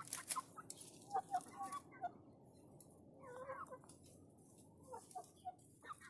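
Birds calling in short clucks and chirps, scattered through, over a low steady hiss.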